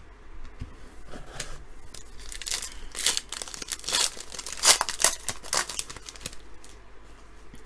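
A trading-card pack wrapper being torn open and crumpled: a run of short, irregular crinkly rips, loudest a little past the middle.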